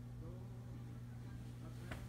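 Steady low electrical hum of a quiet room, with a faint voice murmur in the first half second. A single small click near the end comes as the board-book page is handled.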